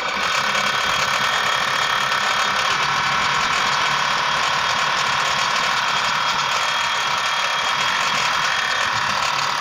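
Siruba industrial overlock (serger) machine running steadily at speed with no fabric, sewing off a thread chain. The chain forms properly, the sign that the looper and needle timing and the guide settings are correct.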